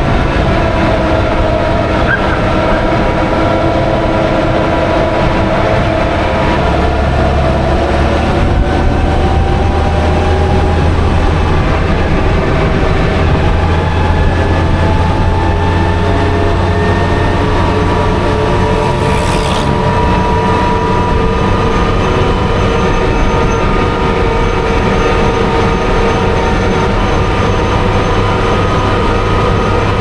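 Daimler Ferret Scout Car's Rolls-Royce B60 straight-six petrol engine and drivetrain running under way at road speed, with several steady whining tones that drift slowly in pitch as the speed changes. A deeper drone comes in about six seconds in.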